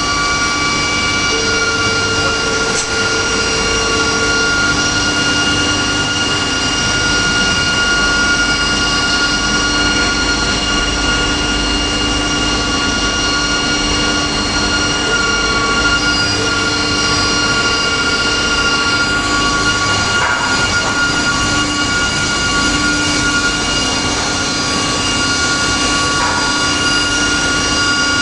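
Multi-rip saw with an automatic board feeder running: loud, steady machine noise with several steady whining tones, some of which come and go.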